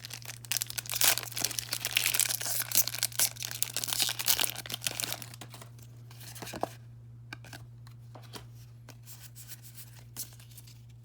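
Foil wrapper of a Pokémon booster pack being torn and crinkled for about five seconds, then only sparse light ticks and rustles of handling, over a steady low hum.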